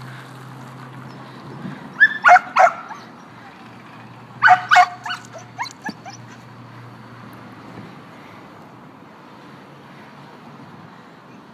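Dog yipping: three short high yelps about two seconds in, two more a couple of seconds later, then a few fainter whimpers.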